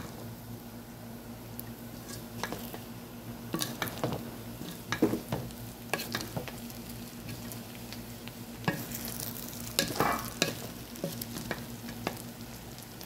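A spatula mixing cooked biryani rice and mutton in a metal pot. It makes scattered scrapes and knocks against the pot over a faint steady hum.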